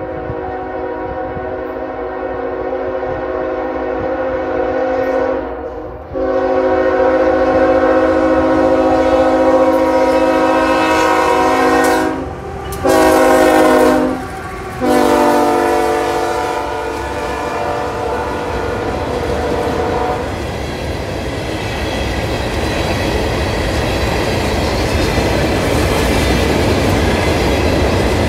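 Norfolk Southern freight locomotive's multi-tone air horn sounding the grade-crossing signal, long, long, short, long, as the train approaches and passes. After the horn stops, about two-thirds of the way in, the steady rumble and clickety-clack of ballast hopper cars rolling by takes over.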